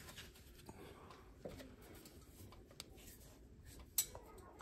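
Faint scattered clicks and handling noises, with one sharper click about four seconds in.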